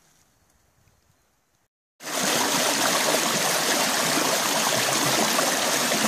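Shallow, fast stream rushing and splashing around a pair of wellington boots standing in it: a loud, steady rush of water that starts suddenly about two seconds in, after near silence.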